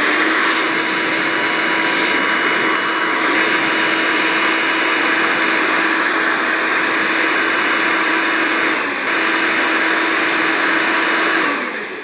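BaByliss 3Q hair dryer's brushless motor and fan running steadily: a loud rush of air with a high whine, blowing only cold air on every setting. Its heater is not working, which the owner suspects is a failed heating element or faulty switches. It dips briefly about nine seconds in and winds down just before the end.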